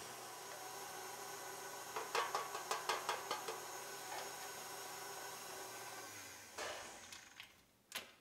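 KitchenAid Artisan stand mixer with a whisk attachment running steadily in a glass bowl of cake batter, with a run of light clicks and taps about two seconds in. Near the end the motor sound dies away and a couple of knocks follow.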